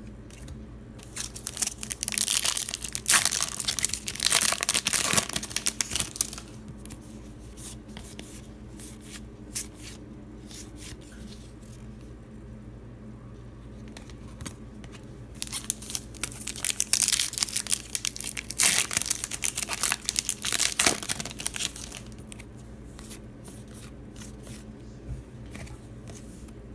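Trading card pack wrappers being torn open and crinkled, in two bouts of a few seconds each.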